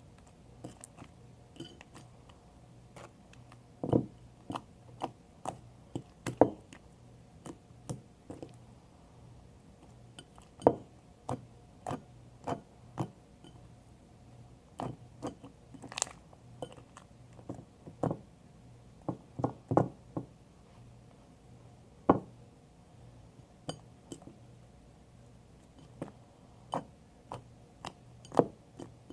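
Homemade glue-and-borax slime being worked and kneaded, giving irregular sharp clicks and sticky pops, a few louder ones standing out.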